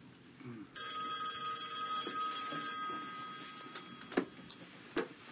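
Telephone ringing: one long, steady ring starts about a second in and stops near four seconds. Two sharp knocks follow, about four and five seconds in, the loudest sounds here.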